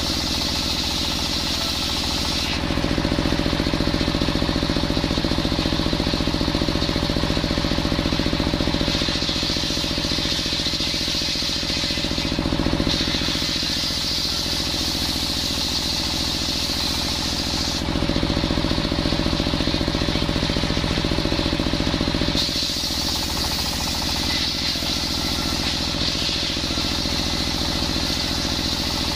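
Engine-driven circular saw bench running steadily while ripping coconut wood into planks. The engine drone stays on throughout, and the tone of the sawing shifts several times as boards are fed through the blade.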